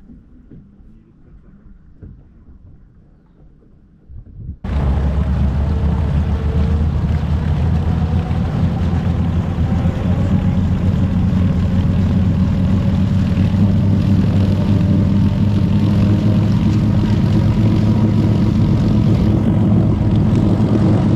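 A bass boat's outboard engine running steadily, a low, even drone that cuts in suddenly about four and a half seconds in. Before that there is only faint background sound.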